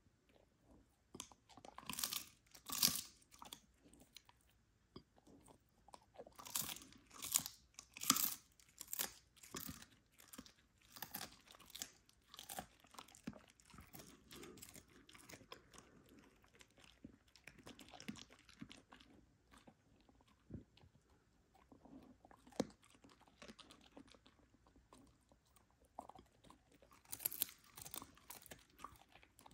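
Husky chewing a dried cod skin treat: irregular brittle crunches in clusters, loudest about two seconds in, around seven to nine seconds in and near the end, with a sparser stretch in between.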